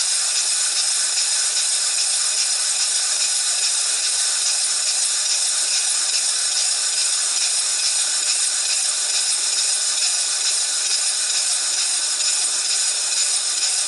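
Stuart Victoria single-cylinder horizontal model steam engine running on compressed air, its exhaust giving a steady, fast, hissy chuffing.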